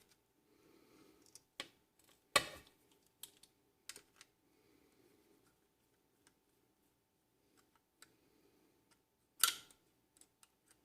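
Small screwdriver working two small screws out of the plastic odometer housing of a BMW E30 instrument cluster: scattered light clicks and taps of metal on plastic, with two sharper clacks, one about two seconds in and one near the end.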